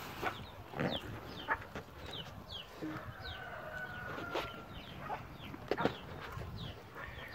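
Birds, likely poultry, chirping over and over in short, falling calls, with a few louder knocks in between.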